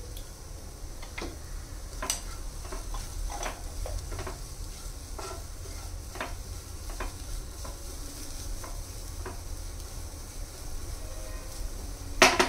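A wooden spatula stirring and scraping grated vegetables in a non-stick frying pan, in irregular scrapes and taps over a light sizzle of sautéing. A louder knock comes near the end.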